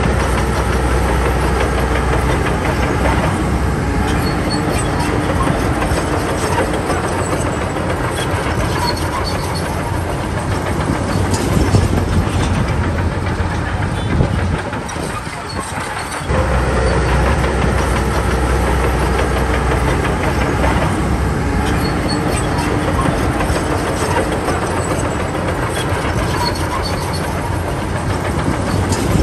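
Shantui DH17B2 crawler bulldozer working: its diesel engine running steadily under load while the steel tracks clank and rattle. The sound drops briefly about halfway through, then resumes.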